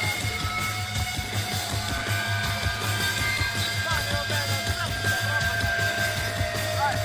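Live rock band playing with amplified electric guitars over a steady low drone, heard from within the audience, with a few bent or gliding notes from about four seconds in.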